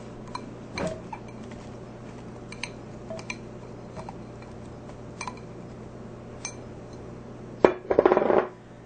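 Chunks of red potato dropped from a plastic bowl into a slow cooker pot of vegetables, with scattered light clinks and knocks and a louder clatter near the end.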